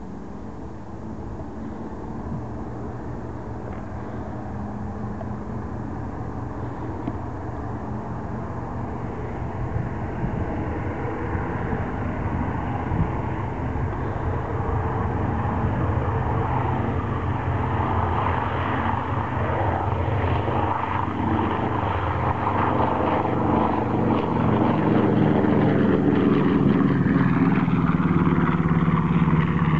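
Aircraft engines running and growing steadily louder as the aircraft approach, the engine note dropping in pitch over the last few seconds.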